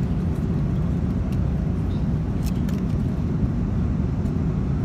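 Steady low roar of an airliner cabin in flight, with a few faint clicks.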